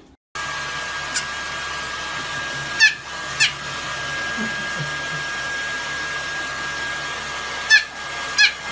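A hair dryer blows steadily with a thin whine while a fluffy white puppy, sitting in a tub after a bath, gives a few short, high yips.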